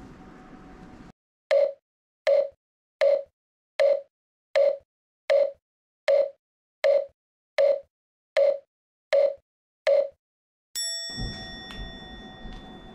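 A mokugyo (wooden fish drum) struck twelve times at an even pace over dead silence, about four knocks every three seconds, each hollow knock short and dry. Near the end a single Buddhist bell is struck once and keeps ringing.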